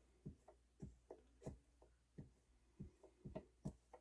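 Faint, irregular scrapes and taps, two or three a second, of an alcohol-soaked cotton swab being worked around the spindle bearing well of a Pioneer PL-560 direct-drive turntable motor, cleaning out a well left nearly dry of oil.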